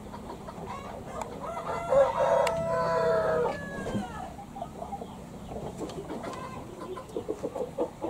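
A rooster crows once, a held call of about a second and a half that starts about two seconds in. Chickens cluck in short scattered calls afterwards, more often near the end.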